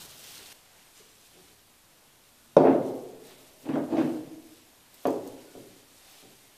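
Stainless steel basin knocked three times, about a second apart, as gloved hands turn chili-coated goose pieces in it; each knock rings briefly. The knocks begin about two and a half seconds in.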